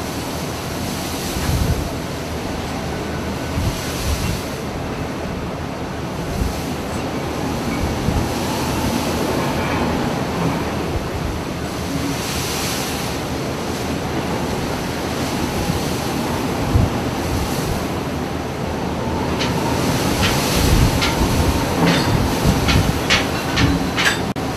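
Steady rumble and rushing noise of a ship under way, with a string of sharp clicks or knocks in the last few seconds.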